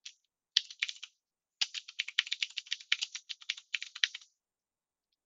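Typing on a computer keyboard: a few keystrokes about half a second in, then a quick run of keystrokes that stops a little after four seconds in.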